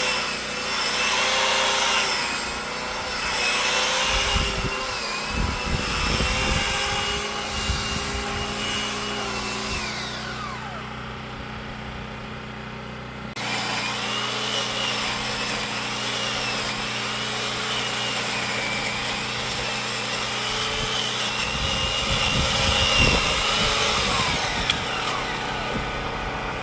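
Powered pole saw running and cutting branches, its motor pitch dipping and recovering as the chain bites into the wood.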